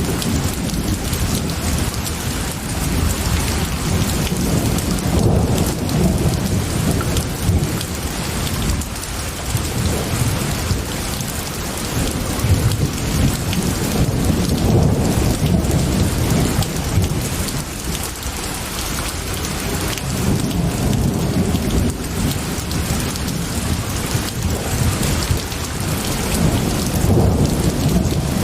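Steady heavy rain with a continuous low rumble of rolling thunder that swells and eases every few seconds.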